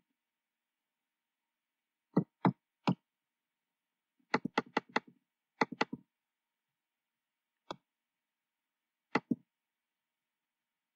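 Sharp clicks of a computer keyboard and mouse being worked: three clicks, then a quick run of about five, then scattered single and paired clicks with silence between them.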